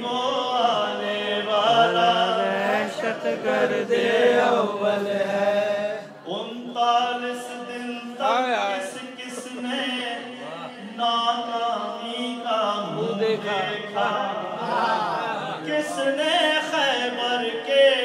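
A man reciting a manqabat, a devotional poem, in a melodic chanting voice into a microphone, holding and bending long notes with only brief breaths between lines.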